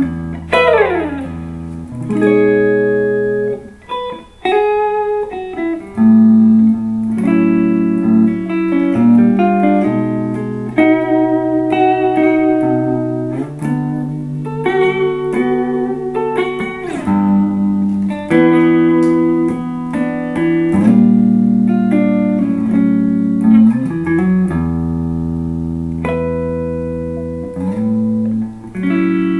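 2008 Epiphone Sheraton II semi-hollow electric guitar played clean through a Fender Blues Junior valve amp: ringing chords over a moving bass line with single melody notes between, and a quick slide down in pitch about a second in.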